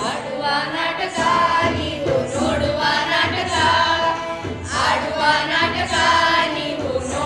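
A group of children singing a song together, with an adult woman's voice among them.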